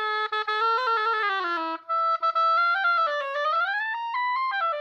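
An oboe played in two short phrases, the first stepping down and the second climbing and then falling, with a breath about two seconds in. The player finds this reed flat and spreading in tone.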